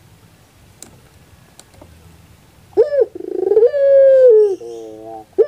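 Puter pelung dove (a domestic collared dove bred for a long coo) cooing loudly about halfway in: a short note, then a long drawn-out coo that falls at its end, followed by a softer, lower rolling note. A second coo begins right at the end, after a couple of faint clicks early on.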